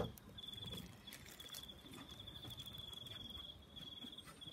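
A cricket trilling faintly at one steady high pitch, in runs of a second or so broken by short gaps.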